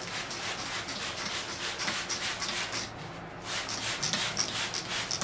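A hand trigger spray bottle spritzing soapy water onto a Brazilian rain tree bonsai. It gives a rapid series of short hissing squirts, about four a second, with a brief pause about three seconds in.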